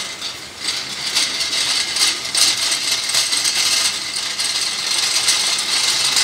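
Friction stir welding machine's rotating tool grinding against an aluminium plate: a dense, rattling scrape full of rapid clicks, growing louder over the first second or two and then running on steadily.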